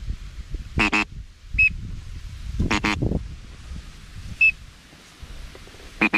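Duck call blown in short quacks, two at a time, then a quick run of three near the end. Brief high whistle-like peeps fall between them.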